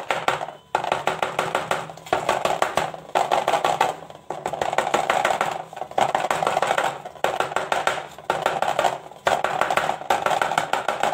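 A batter-filled cake pan being tapped rapidly over and over, in runs of quick knocks about a second long with short pauses between, to knock the air bubbles out of the batter.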